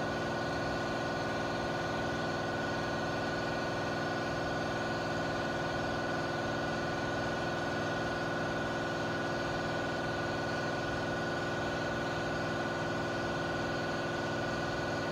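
Small sander running at a steady whine, wet-sanding oxidized single-stage lacquer with a 3000-grit Trizact disc to cut off the dead paint.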